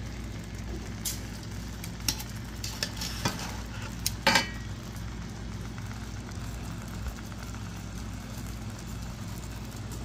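Chicken fat mushrooms frying in a stainless steel skillet with a soft sizzle, while a cooking utensil stirs them and clicks against the pan several times, loudest about four seconds in.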